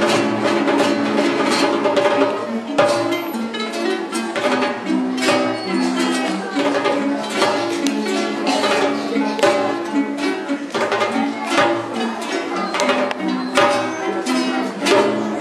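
A group of acoustic guitars strumming and picking a tune together, with a djembe hand drum beating along.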